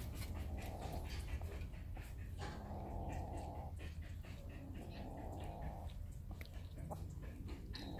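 A cat's low rumbling growl, coming in repeated stretches about a second long, with small clicks from a kitten chewing raw meat.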